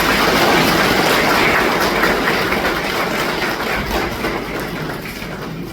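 Audience applauding in a hall. The clapping is loudest at first and slowly dies away.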